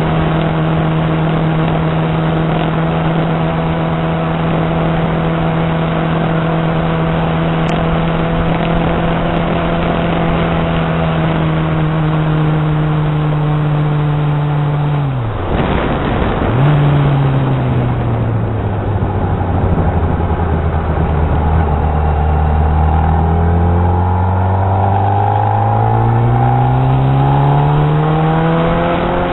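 Honda CBR600RR's inline-four engine riding at a steady pitch over a rush of wind, then its note falls as the bike slows, drops out briefly about halfway through, and comes back lower. Over the last several seconds the engine pitch climbs steadily as the bike accelerates again.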